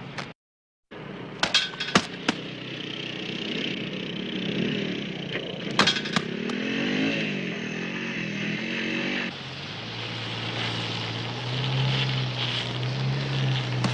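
A motorcycle engine running, its pitch rising and falling, then a steady low drone after an abrupt change about nine seconds in. A few sharp clicks come near the start.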